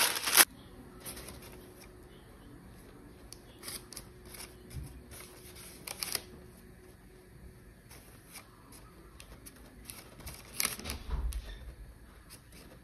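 Baking parchment crinkling under a hand as it is pressed into a pan, loud for about half a second at the start. Then only faint, scattered paper rustles and light taps, with a short burst of rustling near the end.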